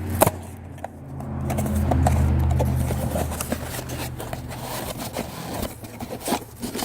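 Small scrapes and clicks of a new air-filter pre-cleaner and its plastic packaging being handled and opened, over a low rumble that swells about two seconds in and fades again.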